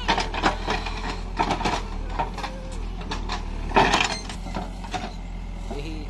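Backhoe loader's diesel engine running steadily while the bucket digs into soil. Over the hum come bursts of knocking and clattering from the bucket and the clods it moves: one at the start, one about a second and a half in, and the loudest about four seconds in.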